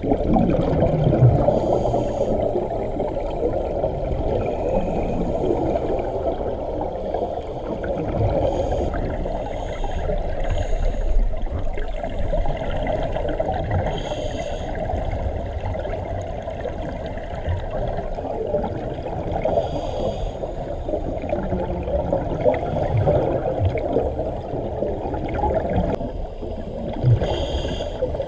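Underwater sound heard through a camera housing: a steady muffled rush of water, with a gurgling burst of scuba exhaust bubbles every few seconds.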